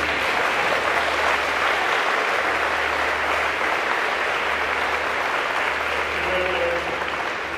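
A small audience applauding in a school gymnasium, steady clapping throughout.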